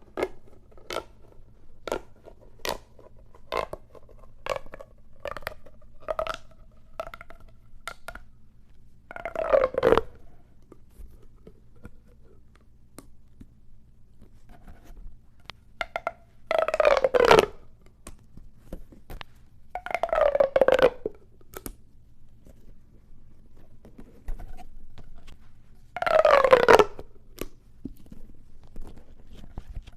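Plastic pop tube fidget toy: its ridges snap one at a time in a run of sharp clicks for the first several seconds. Then come four louder ratcheting zips of about a second each, spaced several seconds apart, each falling in pitch as the corrugated tube is pulled out or pushed back.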